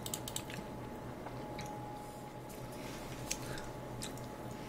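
Quiet chewing of sauce-coated fried sweet and sour pork, with a few faint scattered clicks, over a low steady hum.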